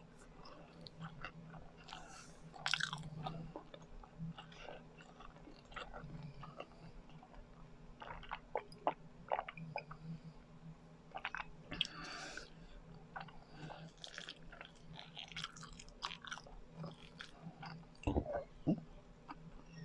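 Close-miked chewing of biko, sticky sweet rice cake, with irregular wet, sticky mouth clicks and smacks.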